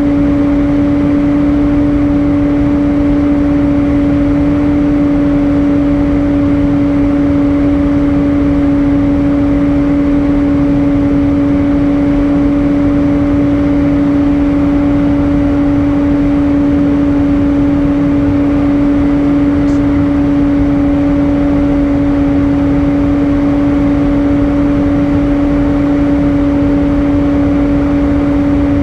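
Airbus A320 cabin noise in flight: a steady rushing drone of engines and airflow, with a constant low hum running through it.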